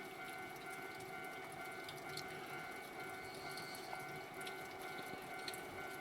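Steady faint room hum with a few high steady tones over a soft hiss, and a few scattered faint ticks.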